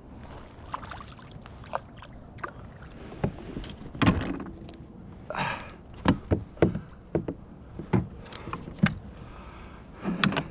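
Irregular knocks and bumps on and around a fishing kayak, clustering several to the second in places, over a low steady background.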